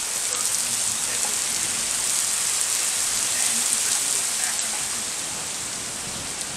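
Heavy thunderstorm rain pouring down steadily, an even hiss of a downpour.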